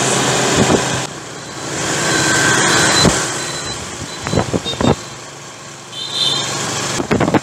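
Wind rushing over the microphone and road noise from a motorbike riding up a hill road, rising and falling, with a few sharp knocks about three, four and a half and seven seconds in.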